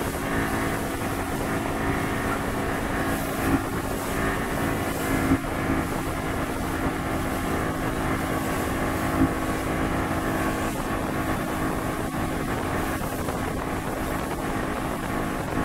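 Yamaha 200 hp outboard motor running at speed with a steady drone, mixed with wind on the microphone. A few brief louder knocks stand out.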